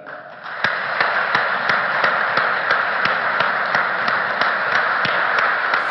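Steady noise of a crowded hall, with sharp taps at an even pace of about three a second starting about half a second in.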